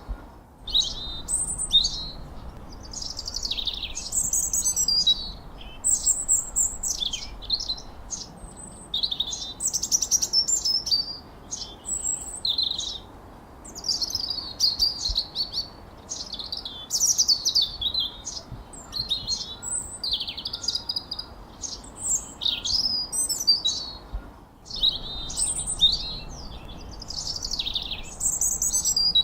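Songbirds chirping and whistling in a dense, continuous run of short, high calls and quick sweeping trills, broken by two brief pauses.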